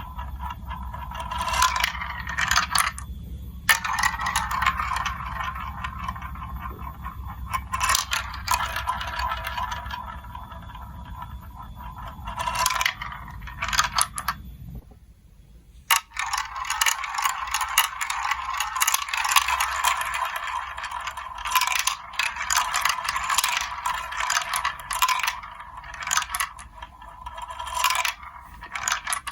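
Marbles rolling and rattling along a plastic building-block marble run track, with quick clicks and clatter as they drop and knock through the pieces. The run goes quiet briefly about halfway through, then picks up again.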